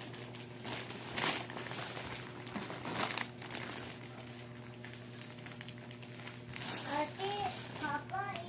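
Packaging crinkling as it is handled, with sharp rustles about a second in and again about three seconds in. A high child's voice comes in near the end.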